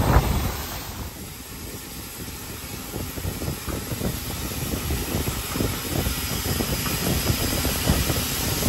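Steady hiss of steam and low rumble in the cab of the 2-8-4 Berkshire steam locomotive Nickel Plate Road 765. It drops back about a second in, then slowly grows louder.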